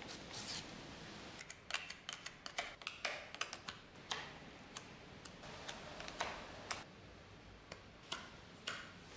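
Putty spatula scraping and clicking against a small metal anvil as metal putty is spread on it: a short scrape near the start, then irregular sharp ticks and taps for most of the time.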